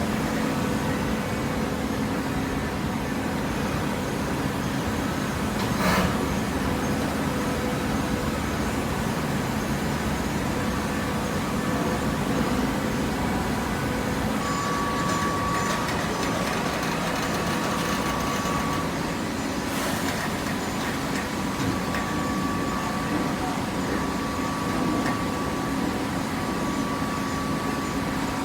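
Automatic horizontal hydraulic cardboard baler running: a steady machine drone with a faint whine. A sharp clank comes about six seconds in and another around twenty seconds.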